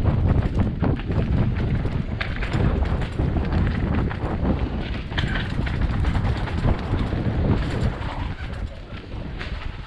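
Mountain bike descending a rough enduro trail: wind buffeting the microphone over the knocking and rattling of the bike on loose ground, getting quieter near the end.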